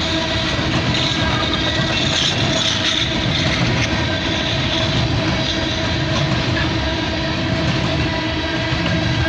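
Empty coal hopper cars of a long freight train rolling steadily past on the track.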